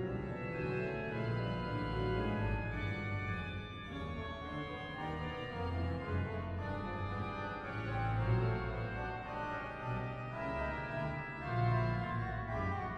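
Organ music, the film's accompanying score: low bass notes under a moving melody.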